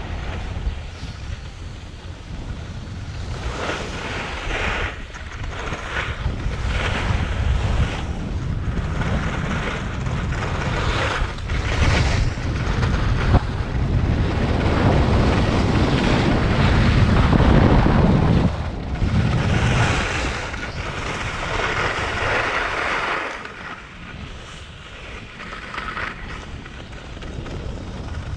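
Skiing downhill on packed snow: wind buffets the camera's microphone with a low rumble while the skis hiss and scrape through a series of turns. It is loudest around the middle and drops off briefly near the end.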